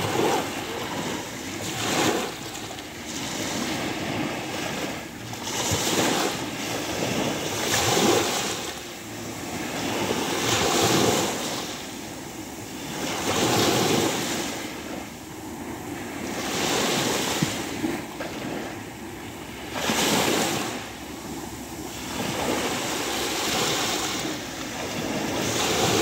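Small waves of the Sea of Azov breaking and washing up a sandy shore, the surf swelling to a hissing surge every three seconds or so and falling back between.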